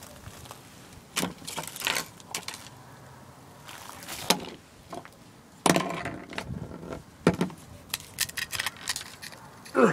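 Scattered sharp clicks, taps and crackles of ice-coated cables and a small device being handled on a wooden deck, coming thick and fast in the second half.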